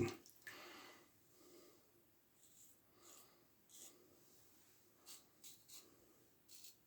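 Near silence broken by a few faint, short scratchy strokes, mostly in the second half: a Gem push-button single-edge safety razor scraping through lathered stubble.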